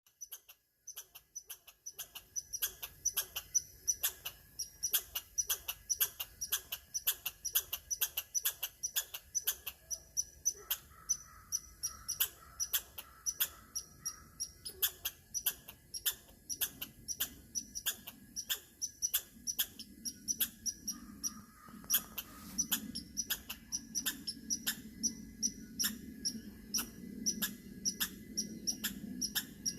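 A squirrel calling: a long run of short, sharp chirps, about two to three a second, kept up steadily.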